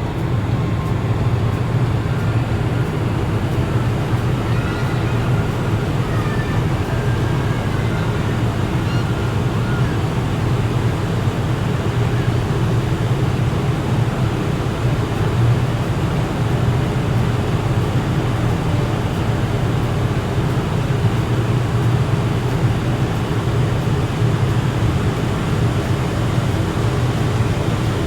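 Large car ferry under way: a steady low drone from the ship's engines under an even rushing wash of noise.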